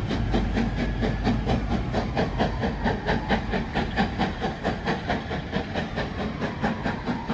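Steam locomotive working a train away at speed, a quick, even beat of exhaust chuffs that fades slightly as it goes.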